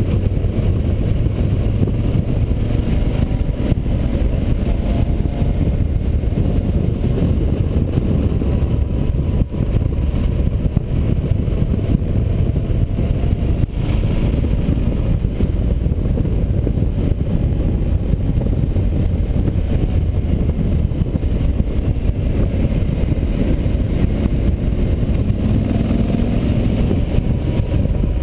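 Yamaha Super Ténéré's parallel-twin engine running under way, its pitch rising and falling a little through the bends, mixed with heavy wind rush on the bike-mounted microphone.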